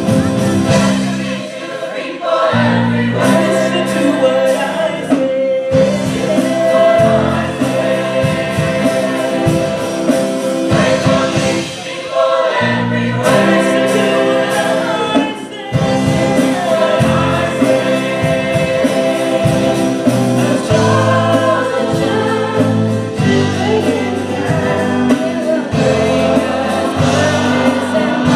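Gospel choir singing with a lead vocalist, backed by keyboard and drum kit, with short breaks between phrases.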